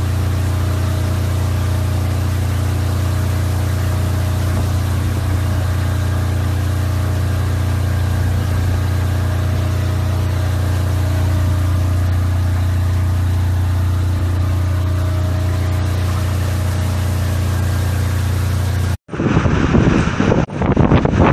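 An engine running steadily: a loud, unchanging low hum with even overtones. About nineteen seconds in it cuts off abruptly, replaced by strong gusts of hurricane wind buffeting the microphone.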